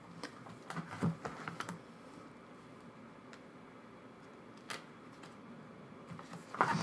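Soft clicks and rustles of plastic photocard sleeves and binder pages being handled: a handful in the first two seconds, one near the middle and a few more near the end.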